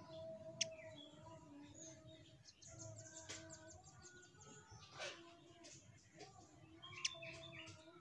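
Velvet-fronted nuthatch calling with faint, sharp, high chirps: a loud one about half a second in and another near the end, with a quick run of short notes around three seconds in.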